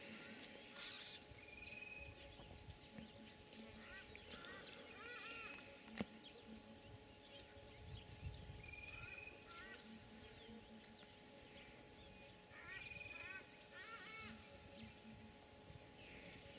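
Birds calling in dry bush: clusters of quick, arched chirps and a few short whistled notes, over a steady high hiss. A single sharp click about six seconds in.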